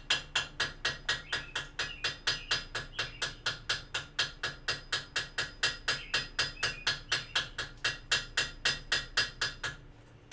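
Hand hammer forge welding a small tab at welding heat on a glowing steel vise screw, held on an anvil tool: light, rapid blows about four or five a second, each with a short metallic ring. The hammering stops near the end.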